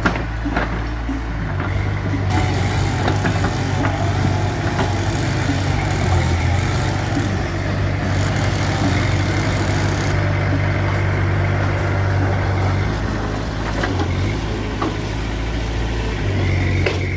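Mitsubishi BD2F bulldozer's diesel engine running steadily under work, with a few sharp clanks scattered through.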